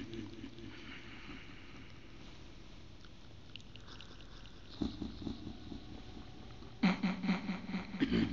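Faint hall noise for about five seconds, then short bursts of voice through a reverberant sound system about five seconds in and again from about seven seconds in.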